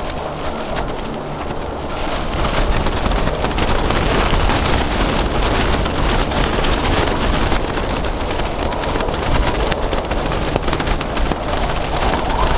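Strong storm wind blowing in gusts and buffeting the microphone, with a dense crackle of small hits, in a snow and hail storm. It picks up about two seconds in.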